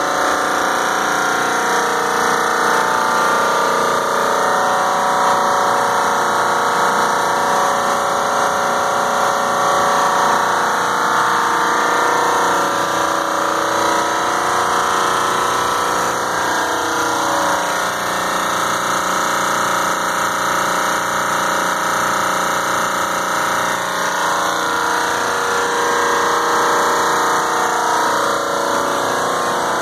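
Large Trane semi-hermetic reciprocating air-conditioning compressors running: a steady, loud mechanical drone with many held tones and no change in speed.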